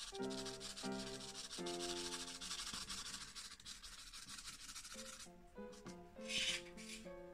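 Carbothello pastel pencil shading on Clairefontaine Pastelmat card: a dense run of quick, scratchy strokes for about five seconds, then one short stroke near the end. Soft background music plays under it.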